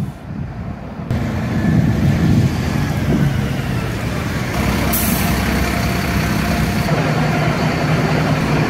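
Large tour coach's engine running with a steady low rumble as the bus moves close by, louder from about a second in. A hiss joins it for about two seconds near the middle.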